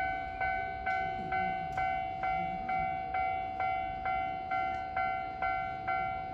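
Japanese railway level-crossing warning bell ringing in an even repeating pattern, about two strokes a second. It signals that a train is approaching and the barriers are down.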